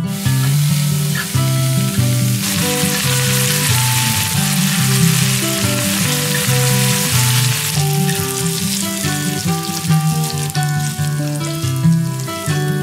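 Chopped bacon sizzling as it fries in a nonstick frying pan. The sizzle grows louder about two seconds in and eases off after about eight seconds. Guitar music plays throughout.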